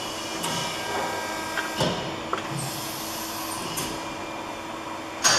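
Amada HFE 100-3 hydraulic CNC press brake running in its automatic cycle. A steady hum carries a number of clicks and clunks as the axes reposition for the next bend, with the loudest knock just before the end.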